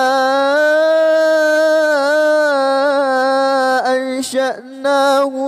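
A man chanting the Quran in melodic recitation (tajwid), holding one long steady note on the elongated word "innā" for about four seconds, then a few short broken syllables near the end.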